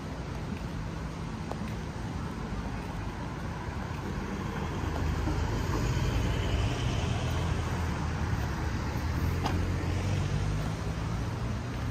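Road traffic: cars passing on the street beside the footpath, with a vehicle's low engine and tyre rumble growing louder from about four seconds in and easing off near the end.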